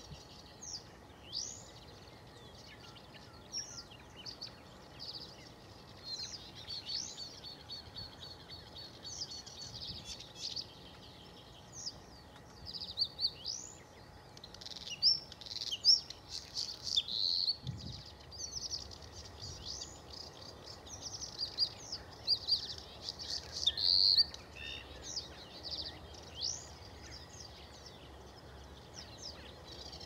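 Male bluethroat singing: a varied, continuous song of short high whistles and chirps, with a fast trill of repeated notes about a quarter of the way in. The loudest phrases come around the middle, and the song thins out over the last few seconds.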